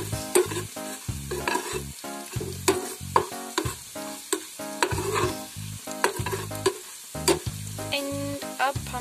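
A steel ladle stirring onions, dried red chillies and cumin frying in hot oil in a metal pan, with a steady sizzle and frequent clinks and scrapes of the ladle against the pan as the freshly added turmeric is mixed in.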